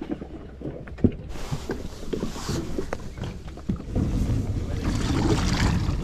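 Hobie fishing kayak moving on the water: water against the hull with scattered knocks and clicks of the boat and its gear. A louder rumbling hiss sets in about four seconds in.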